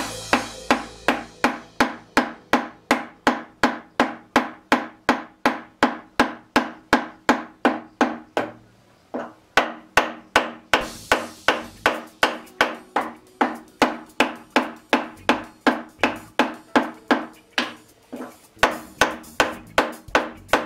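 Soft-face mallet tapping repeatedly on a lathe's cross slide, about two to three blows a second, each with a short metallic ring. The blows pause for about a second near the middle and briefly again near the end.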